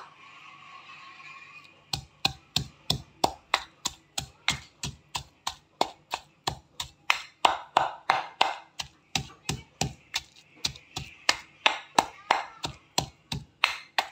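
Stone pestle pounding in a stone mortar (cobek and ulekan), a sharp knock about three times a second, crushing chili and fried anchovies into sambal. The pounding starts about two seconds in, after a faint stretch.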